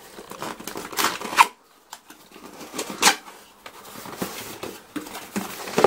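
Cardboard box being pried open by hand, its lid flap scraping and rustling. The loudest scrapes come about a second in and about three seconds in.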